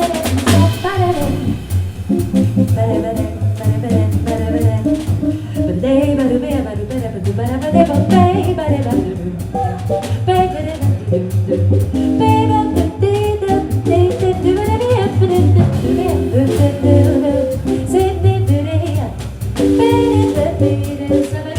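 Live jazz combo playing: a double bass line and a drum kit with cymbals under a wandering melodic lead line.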